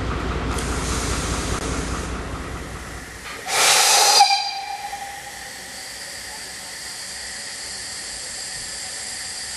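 Narrow-gauge diesel locomotive running with a low rumble as its train pulls in. About three seconds in, a narrow-gauge steam tank locomotive gives a short, loud burst of steam with a tone that dies away over a second, then hisses steadily.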